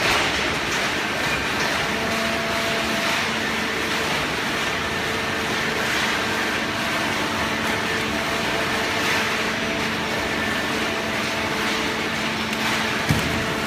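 Hydraulic baling machine running steadily, a hum with mechanical noise over it, and a single knock near the end.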